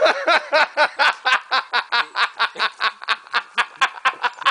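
A woman laughing: a long run of quick, even 'ha-ha' pulses, about six or seven a second, fading somewhat toward the end.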